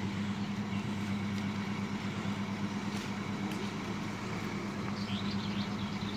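A motor running steadily at an even low hum, with faint high chirps near the end.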